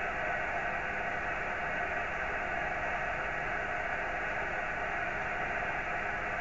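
Steady hiss and static from an amateur radio receiver tuned to the CAS-3F satellite's CW beacon frequency, with no beacon signal coming through: the satellite is not yet heard.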